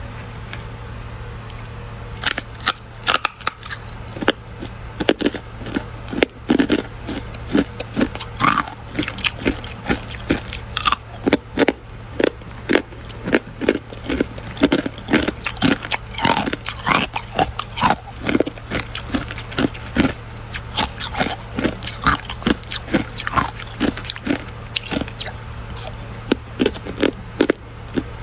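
Close-up crunching of hexagonal ice cubes coated in matcha powder being bitten and chewed: dense, irregular, crisp cracks starting about two seconds in, over a steady low hum.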